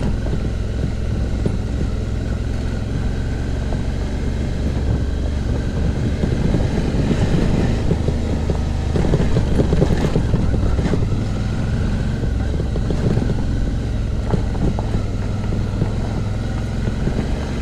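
Suzuki V-Strom's V-twin engine running steadily on a dirt track, with wind buffeting the microphone. From about eight to thirteen seconds in there is a rougher patch of clatter and knocks as the bike goes over bumps.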